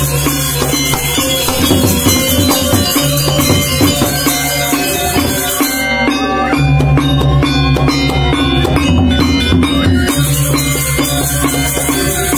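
Balinese gamelan gong ensemble playing: bronze metallophones ringing in fast interlocking patterns over sustained low gong tones, with a bright cymbal shimmer. The cymbals drop out for about four seconds in the middle, then come back in.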